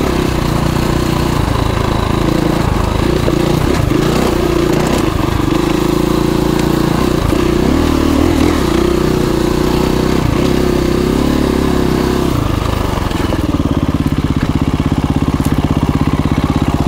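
KTM 350 EXC-F single-cylinder four-stroke engine riding on a rocky single track, its pitch rising and falling with the throttle. About twelve seconds in it drops to a steady idle as the bike comes to a stop.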